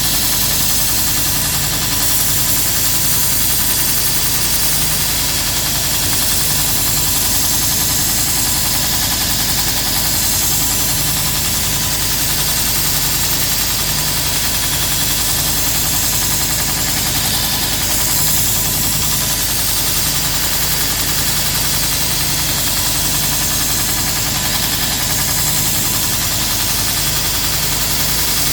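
Grizzly 2x42 belt grinder running steadily: a motor hum under a loud, even hiss from the sanding belt as a lopper blade is ground on it.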